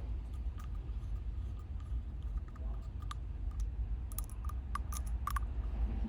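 Small hand-fitted parts of a steering-wheel quick-release lock being pushed into place, giving scattered light clicks. A cluster of sharper clicks comes about four to five and a half seconds in, over a low steady rumble.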